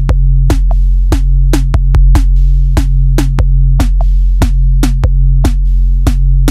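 Background music: an electronic drum-machine beat, about two strong hits a second with lighter ones between, over a steady low bass.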